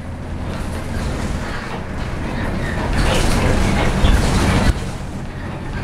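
Bus running along the road, heard from inside the passenger cabin: a steady low engine and road rumble that grows louder about three seconds in and drops off suddenly shortly before the end.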